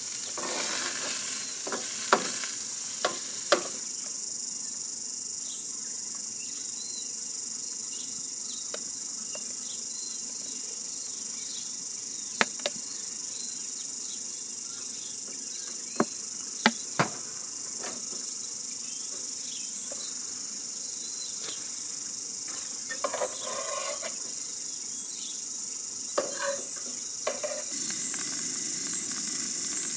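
Insects chirring in a steady, high, even drone, with food sizzling in a frying pan on a portable gas stove, strongest in the first few seconds and near the end. A handful of sharp clicks of metal cooking utensils against the pan break in, three in the first few seconds and three more around the middle.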